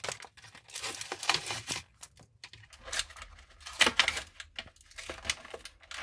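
Toy box packaging being forced open by hand, crinkling and tearing in several short irregular bursts with brief pauses, as a figure held fast inside is pulled free.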